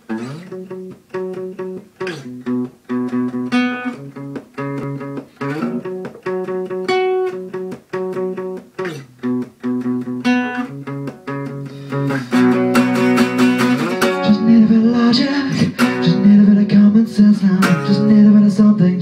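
Acoustic guitar played as a song intro: separately picked notes and chords at first, then about twelve seconds in the playing turns fuller and louder, with strummed chords.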